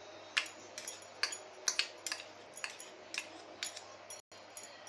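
Steel spoon clinking and scraping against small steel bowls while spooning out marinade ingredients: about a dozen short, sharp clinks at an irregular pace.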